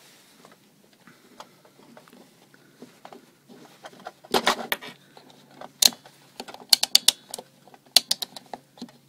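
Clicks and light knocks from handling a Mastercraft digital multimeter as it is switched to the 10 amp range: the rotary selector dial clicking through its positions and the test leads being handled. The clicks come in irregular clusters, loudest about four and a half seconds in and again from about six to eight and a half seconds.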